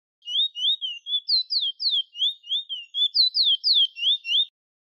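Chestnut-bellied seed finch (the Trinidad bullfinch) singing a rapid run of clear whistled notes, some rising and some sliding down, about three to four a second, breaking off near the end.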